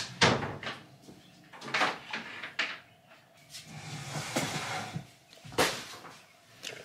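A large paper shopping bag rustling as it is carried and set down, with several sharp knocks and bumps of handling. The rustle is loudest about four seconds in.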